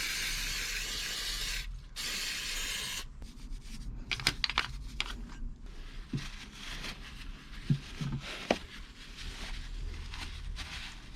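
Two bursts of cleaning spray hissing from a nozzle, the second shorter, as the exposed driveshaft joint of a Yamaha XVS 650 Drag Star is cleaned out. Scattered small metallic clicks and rubbing follow as the parts are handled and wiped.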